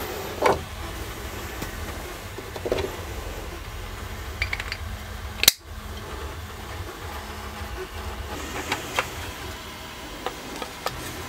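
A few light clicks and knocks of 3D-printed plastic parts being handled: an orange drill-centring guide shaped like a telephone handset is lifted off its wall-mounted cradle. There is a low steady hum underneath, and one sharper knock about halfway through.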